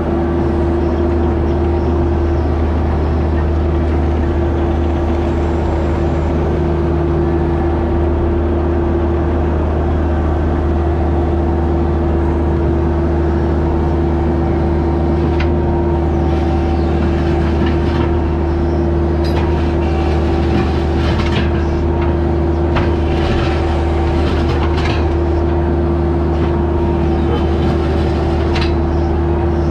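Engine of a piece of construction equipment running at a steady speed, with scattered knocks and scrapes over it in the second half.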